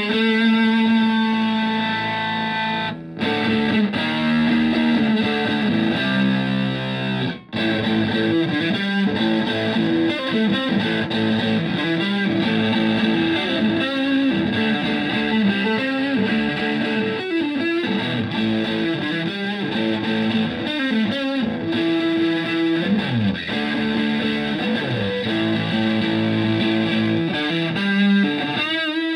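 Stratocaster electric guitar played through a Tone Bender MKI germanium fuzz pedal into a Fender Twin Reverb–style amp: thick, fuzzy distorted notes and chords. The playing breaks off briefly about 3 and 7 seconds in, and a few notes slide down in pitch later on.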